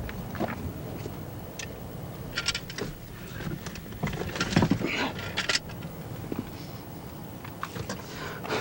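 Scattered clicks and knocks of someone climbing into a pickup truck's cab and handling things inside, with a cluster of louder knocks about four to five seconds in.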